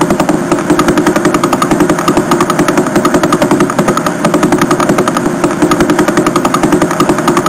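Sonification of the Vela Pulsar, a spinning neutron star: a fast, regular ticking over a steady hum. Each tick marks one turn of the pulsar, which rotates about 11 times a second.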